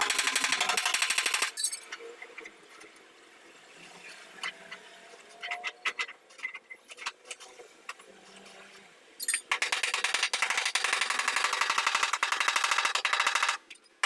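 Power tool working sheet metal with a fast, even rattle in two bursts, one brief at the start and a longer one of about four seconds near the end, with scattered knocks and clicks in the quieter stretch between.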